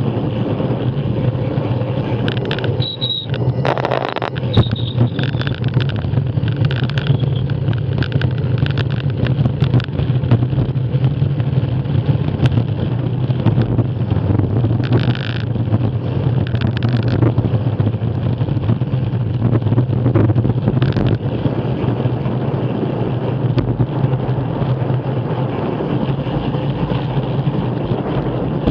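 Wind rushing over the microphone of a bicycle-mounted camera, along with road-bike tyres rolling on tarmac, while coasting downhill at about 20 mph. The rumble is steady, broken by scattered short clicks.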